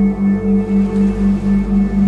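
Ambient meditation drone for theta-wave brainwave entrainment: a low tone pulses evenly about three times a second under fainter steady higher tones.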